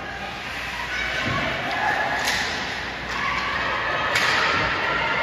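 Sounds of an ice hockey game in a rink: a steady murmur of voices with two sharp knocks of play, about two seconds apart.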